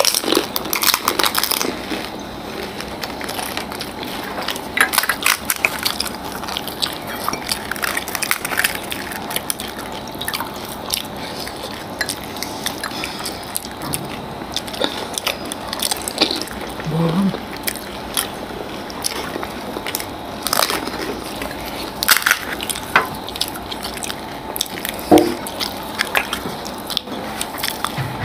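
Crisp fuchka (pani puri) shells crunching and crackling as they are bitten and chewed, with wet slurping of the spiced water they are filled with.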